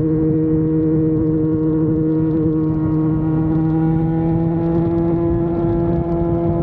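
Yamaha FZ6 Fazer 600 motorcycle's inline-four engine running steadily at a cruise, its pitch creeping up slowly over the second half as it gently gains revs, over a low rumbling noise.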